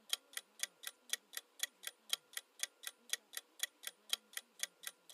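Countdown-timer ticking sound effect, steady sharp ticks at about four a second, marking the seconds left to guess the answer.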